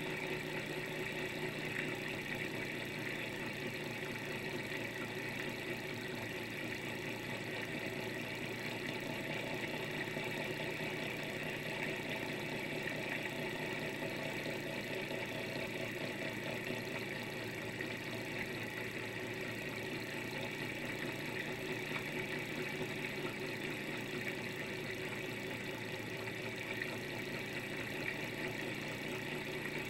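Small thermoacoustic engine running steadily, its glass piston and flywheel turning fast with a continuous, even mechanical whirr while it drives a little generator.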